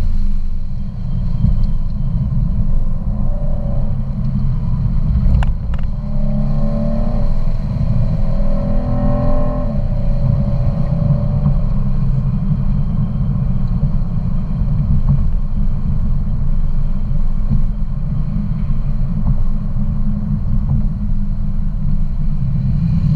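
Car being driven at speed on a race track, heard from inside the cabin: a steady heavy low rumble of engine and road noise. A higher engine note comes through between about 6 and 10 seconds in, and there are two sharp clicks just before it.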